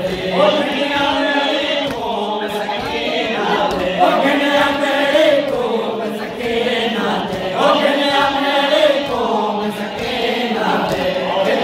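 Crowd of men chanting a noha, a Shia mourning lament, together in unison. The same sung phrase recurs about every two seconds.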